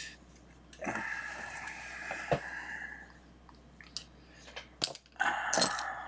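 Solder wire and hand tools being handled on a bench mat: rustling and scraping with a few sharp clicks, and a louder burst of rustling near the end.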